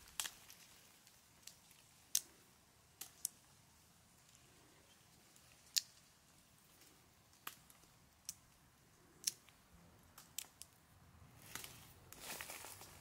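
Faint, scattered sharp clicks and small scrapes of fingers and fingernails handling a small hard object, with a short rustle near the end.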